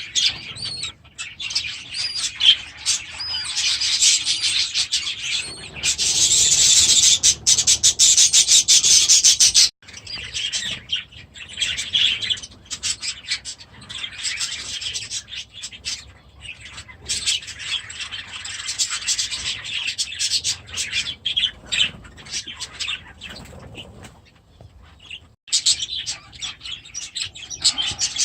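Budgerigars chattering and chirping in a rapid, continuous warble. About six seconds in, a harsher, louder stretch lasts about four seconds.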